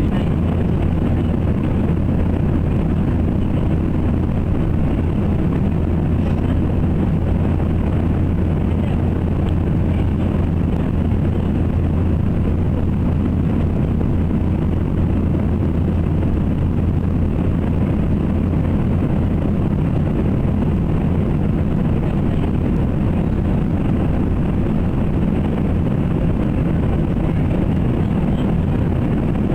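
Light airplane's engine and propeller heard from inside the cabin: a loud, steady drone with a strong low hum that holds unchanged.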